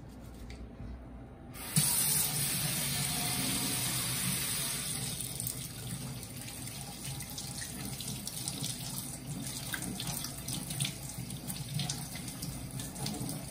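Kitchen tap turned on about two seconds in, then running steadily into a stainless-steel sink, the stream splashing over hands being washed under it.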